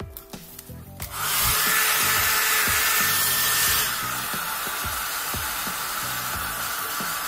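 Hair dryer switched on about a second in and blowing steadily with a whine, drying the opened phone's parts; it drops a little in level about three seconds later and keeps running.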